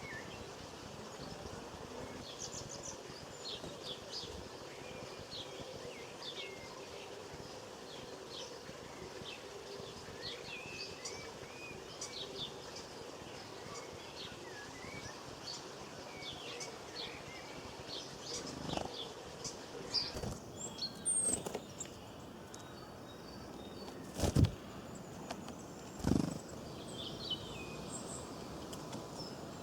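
Small birds chirping and twittering, many short high calls over an outdoor background hiss, with a few louder thumps in the second half.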